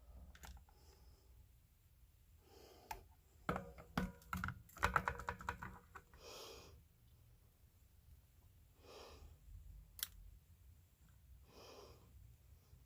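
Faint clicks and handling noises from small parts being worked on a guitar pickguard's wiring, denser for a few seconds early on, with a few soft breaths later.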